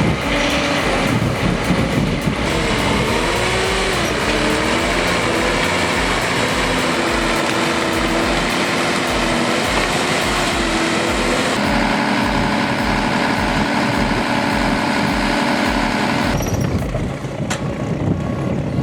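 Brooks 1002 wood chipper driven by a Scania diesel engine, running under load while chipping. The engine pitch dips and recovers a few seconds in as it takes wood, then holds steadier. The sound shifts abruptly twice in the second half.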